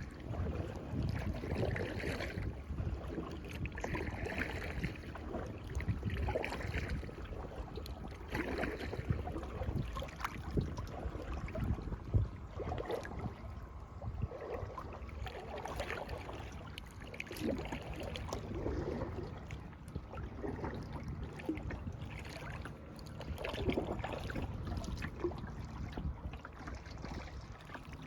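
Kayak paddle strokes dipping and splashing in lake water, about one every two seconds, over a low rumble of wind on the microphone.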